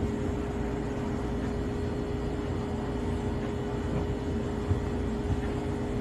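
A steady low hum and hiss with a faint steady tone over it, the background noise of a room with no distinct event.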